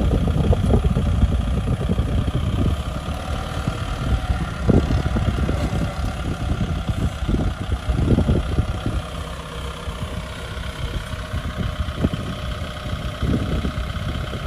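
Kubota M6040 tractor's four-cylinder diesel engine running steadily while the tractor is bogged down in soft sandy soil, a little louder in the first half.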